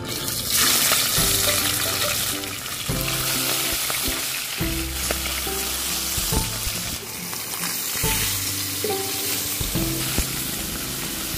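Whole fish frying in hot oil in a pan: a steady sizzle that starts just after the first fish is slid in and continues as more fish are added.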